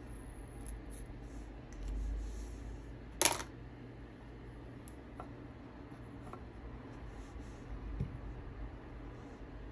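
Faint handling of fabric and sewing tools on a tabletop, with one sharp click about three seconds in as the Sharpie marker is put down. A few small ticks follow as the pincushion and needle are picked up.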